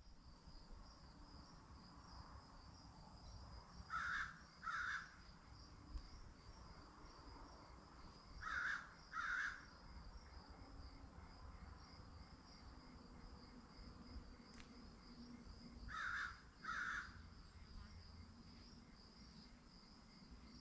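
Insects trilling steadily in a high, fast-pulsing chorus, while a bird calls three times, each time two short calls in quick succession; the bird calls are the loudest sounds.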